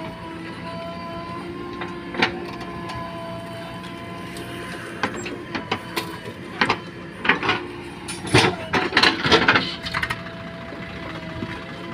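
JCB 3DX backhoe loader's diesel engine running steadily while the backhoe digs soil and dumps it into a tractor trolley. Scattered clanks and knocks, with a loud cluster of scraping and falling-dirt noise about two-thirds of the way through.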